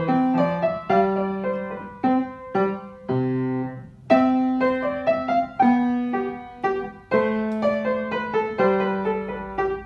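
Acoustic upright piano played by hand: a simple classical-era piece, a right-hand melody over a left-hand accompaniment, in short phrases with brief breaks between them.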